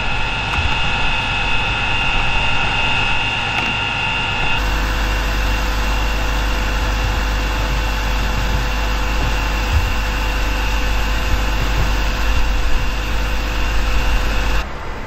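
Fire truck engine running steadily at idle, with a steady high whine over it. The sound shifts abruptly about a third of the way in and again near the end, getting heavier in the low rumble after the first change.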